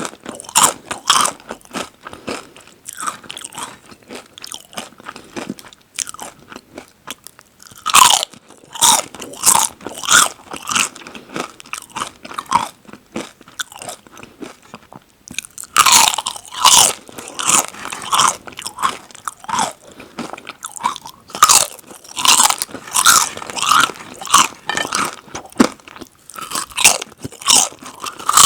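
Close-miked crunching of crisps being bitten and chewed. Runs of sharp crunches alternate with quieter chewing, and the crunching is densest through the second half.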